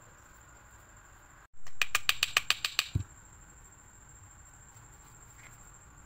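Aerosol lubricant spray hissing in one sputtering burst of about a second, pulsing about ten times a second, aimed at the jammed motor of a hair dryer to free it. A dull thump follows just after.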